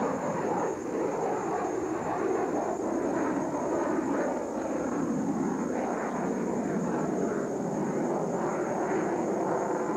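Fixed-wing aircraft engine running steadily, a constant dense noise without breaks.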